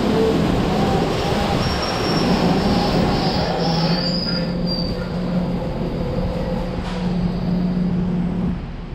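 Automatic car wash machinery running: a steady rush with high whining motor tones that shift in pitch, easing off near the end.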